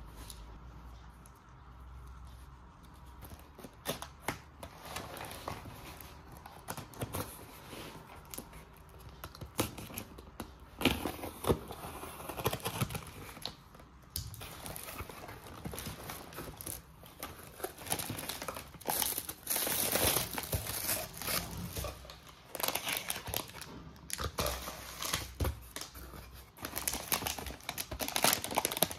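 Plastic packaging crinkling and tearing, with irregular clicks and taps of small pieces being handled, as a toy kitchen set is unboxed.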